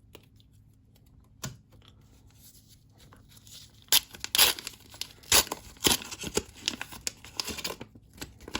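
Trading-card pack wrapper being torn open and crinkled by hand: a single short click about a second and a half in, then a quick run of sharp tearing and crinkling noises over the second half.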